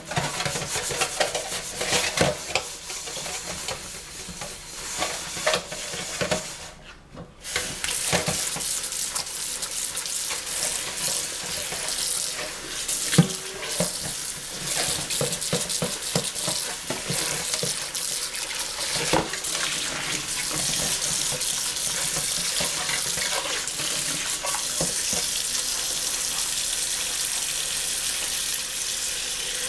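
Kitchen tap running into a sink while a pot is washed, with scattered knocks and clatter of the pot against the sink; the water runs more steadily in the last third.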